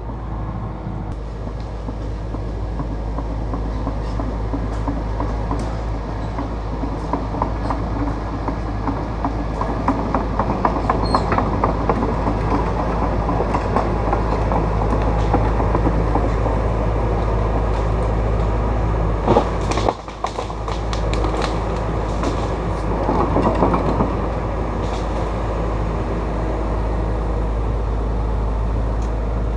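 Takeuchi TB290 excavator running steadily while working, with clanking and clatter through the middle and a few sharp cracks about two-thirds of the way through.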